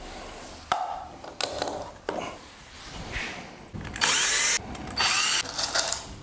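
Cordless drill boring into the wooden side panel of a stitch-and-glue kayak hull, the holes for the copper-wire stitches: two short bursts of about half a second each, one at about four seconds and one at five seconds. Before them come a few light knocks of handling.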